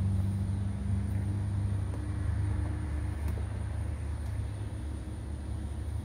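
Steady low hum of a running engine, with a few faint ticks over it.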